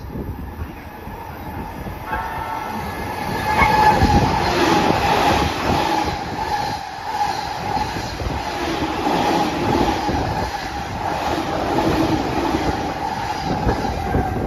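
Stainless-steel JR commuter electric train passing through the station at speed without stopping: it swells up as it arrives about three to four seconds in, then a steady rush of wheels on rail with a steady whine as the cars go by.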